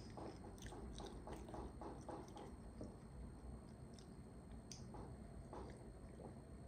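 Faint close-up chewing of a mouthful of meat, with small wet mouth clicks; a few swallows of water from a glass near the end.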